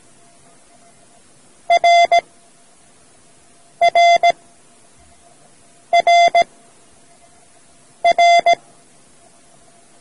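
Morse code letter R (dit-dah-dit) sent as a buzzy beep tone, repeated four times about two seconds apart.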